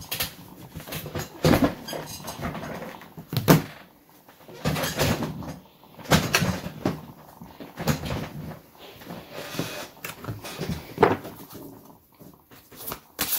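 Oracle card decks being handled and set down on a wooden table: a string of knocks and clatters, the sharpest about three and a half seconds in.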